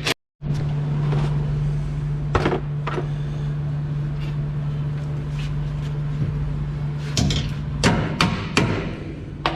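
A steady low machine hum, with scattered sharp metal knocks and clanks of tools on the truck's packing-blade rollers and bolts, several bunched near the end.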